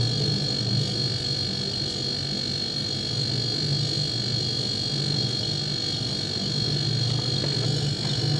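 Low, distorted electronic drone that swells and fades every second or two, with a steady high whine above it.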